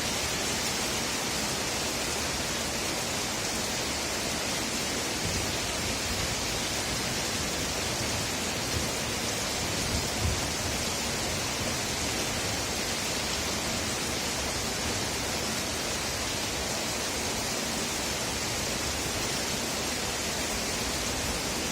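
Steady heavy rainfall, an even hiss throughout. A few faint low thuds come about halfway through.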